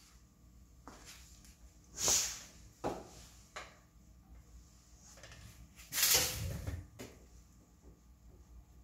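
Light handling noises: a few soft clicks and knocks, and two brief scraping sounds about two and six seconds in, the second one longer.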